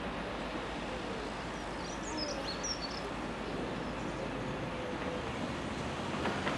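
Steady outdoor background rumble and hiss, with a few short bird chirps about two to three seconds in.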